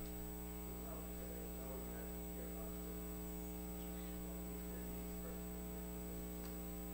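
Steady electrical mains hum with a stack of evenly spaced harmonics and a faint high steady tone, over faint, indistinct sounds in the room.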